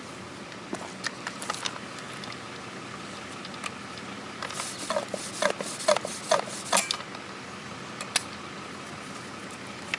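Hands working the brass valve and plastic tubing fittings of an Arborjet tree-injection canister: sharp clicks and short rattles, a few at first, then a dense cluster in the middle, with two or three more near the end.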